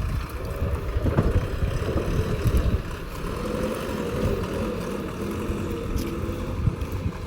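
Diesel engine of a JCB 3DX 76 hp backhoe loader running under load while it works, a dense low rumble with a faint wavering whine over it.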